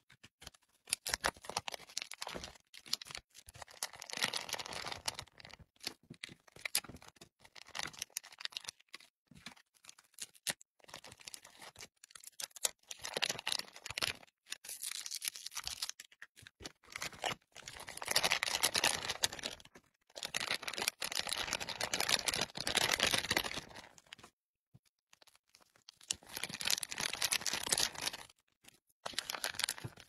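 Plastic food packets crinkling and being torn open, with small clicks and taps as food pieces are dropped into a plastic tray. The sound comes in irregular bursts with brief quiet gaps between them.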